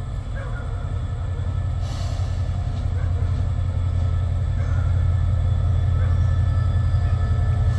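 Diesel locomotive running with a steady low rumble as the train approaches slowly along the platform, growing gradually louder.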